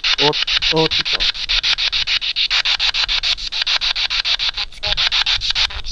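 Spirit box sweeping through radio stations: hissing static chopped into rapid, even pulses, about ten a second, with brief snatches of a voice-like tone twice in the first second and once near the end.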